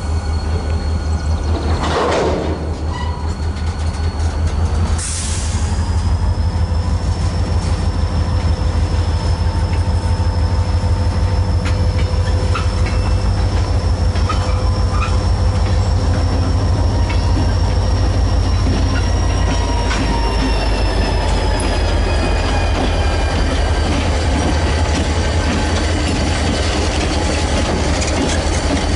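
Freight train cars rolling past on the rails, their wheels squealing in a thin, steady high tone over a heavy low rumble, with scattered clicks of wheels over the rail.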